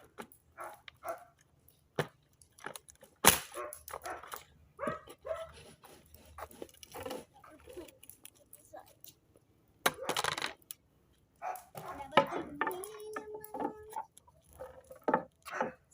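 Dog barking and yipping in a string of short calls, with a longer held note about two-thirds of the way through. A single sharp click about three seconds in is the loudest sound.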